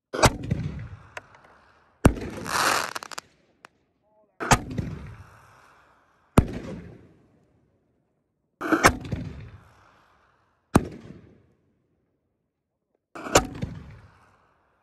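Consumer canister shell fireworks (Winda Fireworks Scatter Bombs) firing from mortar tubes and breaking overhead: about seven sharp booms spaced one to two seconds apart, each trailing off in an echo, with a hissing burst lasting about a second after the second boom.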